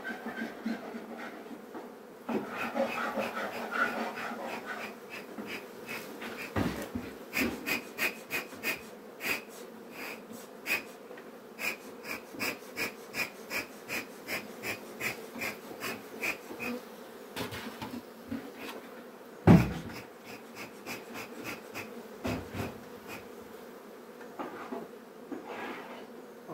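Honeybees buzzing around an open hive while a bee smoker's bellows are pumped in a quick, even run of puffs, about two to three a second. A single loud knock comes a few seconds before the end.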